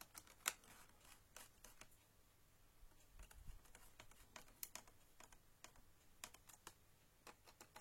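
Faint, irregular small clicks and taps of hands working on a laptop's plastic casing and parts, as the newly fitted SSD and drive bay are secured.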